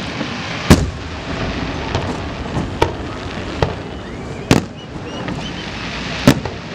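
Aerial fireworks display: about five sharp shell bursts go off, the loudest near the start, about halfway and near the end, over a steady crackle of burning stars.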